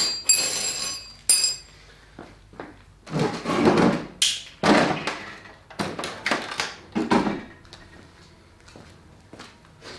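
A Honda HRX217 walk-behind mower being tipped onto its side on a concrete floor: a string of knocks and thuds from the composite deck, handle and wheels, mostly a few seconds in. Before that, a brief crinkle and clink of plastic packaging.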